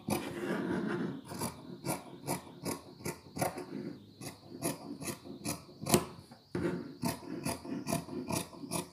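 Large tailor's shears snipping through two layers of cotton fabric, a steady run of cuts about two or three a second.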